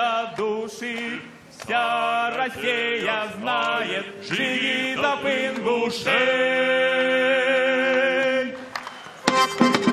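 A choir singing a chant-like folk song unaccompanied, in harmony, in short phrases, then holding one long chord. Just before the end an instrumental band with accordion strikes up.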